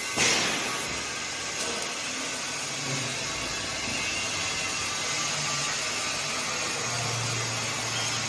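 Bodor laser cutting machine running with a steady hiss, with one brief loud rush just after the start that fades within half a second.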